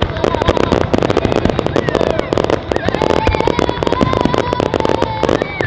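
Fireworks crackling densely, many sharp pops a second without a break, with thin whistling tones sliding up and down and holding over the crackle.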